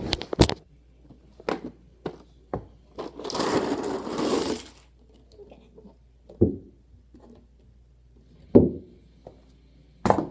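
Handling noises: scattered knocks and taps, with about a second and a half of rustling a few seconds in, and two sharper knocks later on.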